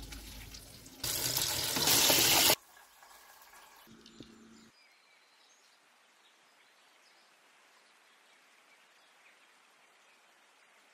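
A loud, steady hiss lasting about a second and a half, cut off abruptly, with quieter noise before it and a faint low hum after it; then only faint background noise for the rest.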